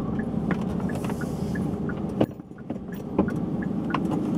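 Car engine idling, heard as a steady low rumble inside the cabin, with a few small clicks and one sharper click about two seconds in.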